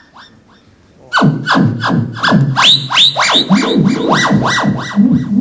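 Theremin sounding a fast run of swooping glides, its pitch sweeping up and down about three times a second. The glides start about a second in, after a short quiet spell.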